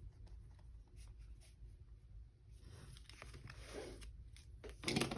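Pen writing on planner paper: faint scratching strokes and small taps, with a brief louder sound near the end.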